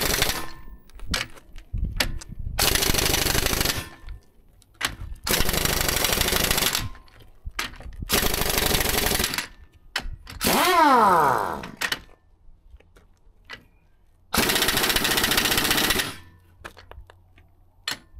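Harbor Freight air impact wrench on 200 PSI air hammering D9G track-roller bolts tight, in four loud bursts of one to two seconds each, with short clicks between them. A little past halfway there is a whine falling in pitch.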